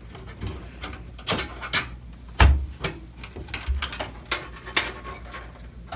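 Clicks, knocks and scrapes of PC expansion cards and the computer case being handled, with a heavier thump about two and a half seconds in and a softer one a little over a second later.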